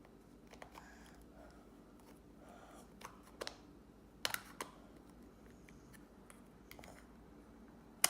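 Plastic toy pieces clicking and snapping as a transforming figure is put together by hand. Faint handling with scattered sharp clicks, the loudest about four seconds in.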